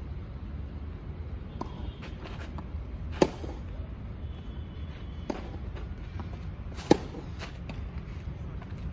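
Tennis ball struck by a racket twice, two sharp pops about three and a half seconds apart, with fainter knocks in between over a low steady hum.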